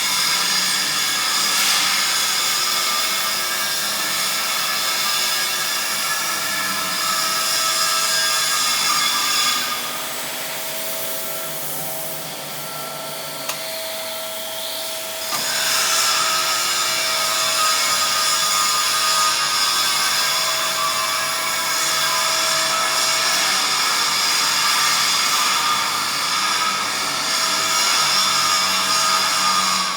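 Steady industrial machinery running with a high whine. It eases off about ten seconds in, and a brief rising whine brings it back about five seconds later.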